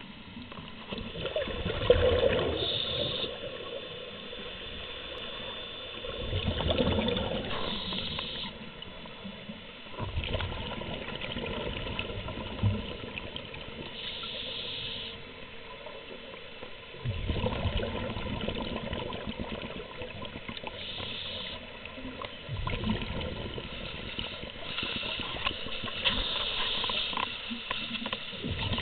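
Scuba divers' exhaled bubbles rushing and bubbling out of their regulators underwater, swelling in surges every four or five seconds with the breathing, with short hisses in between.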